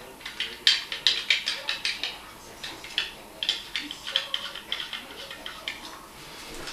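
Irregular run of small plastic clicks and scrapes as the threaded push rods of a dual-flush button on the underside of a toilet tank lid are turned by hand to set their height.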